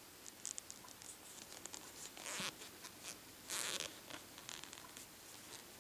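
Crochet hook and yarn worked close to the microphone: faint small clicks and scratches, with two short swishes about two and three and a half seconds in as yarn is drawn through the slip stitches.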